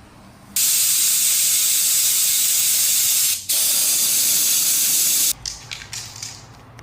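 Pressurised spray hissing in two long bursts, with a brief break about three and a half seconds in, stopping a little after five seconds.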